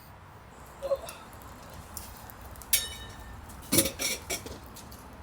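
Light metal clinks and clanks, about five short knocks with the loudest near the end, as small metal stove parts are handled and set in place.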